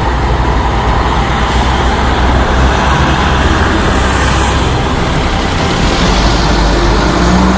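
Steady, loud rush of road traffic noise.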